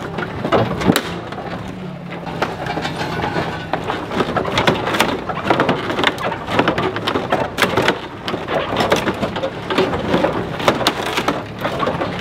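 Excavator bucket ripping and crushing the hood and front end of a Dodge Caravan minivan: irregular, repeated cracks and crunches of metal and plastic over the steady hum of the excavator's engine.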